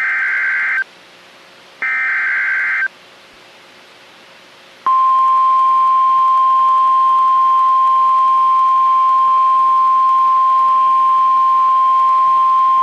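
Two roughly one-second bursts of NOAA Weather Radio SAME header data, a buzzing digital screech. After a gap of about two seconds, the steady 1050 Hz Weather Radio warning alarm tone starts about five seconds in and holds, announcing an Emergency Alert System warning broadcast.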